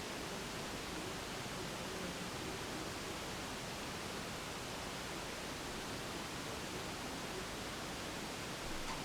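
Steady, even hiss of background noise with no knocks, squeaks or footsteps from the floor above.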